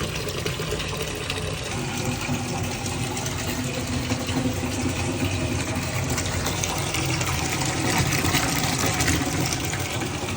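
Water from a tap running steadily into a bucket, filling it.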